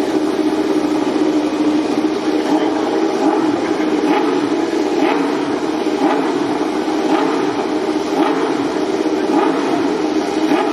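MotoGP racing motorcycle engine running steadily, with faint short clicks about once a second.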